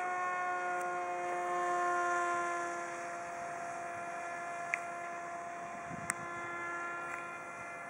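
Motor of a depron RC F-22 Raptor model whining steadily in flight, its pitch drifting slightly up and down. Two short clicks come about two-thirds of the way in.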